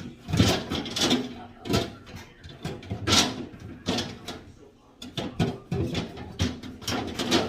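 Irregular knocks, clicks and clatter of refrigerator drawers, shelves and containers being handled, several a second.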